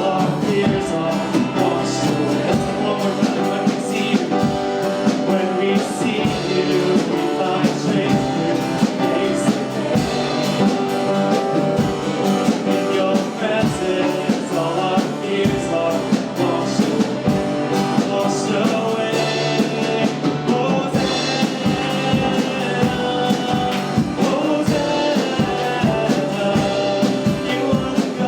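Church worship band playing a song with singing, over a steady drum beat.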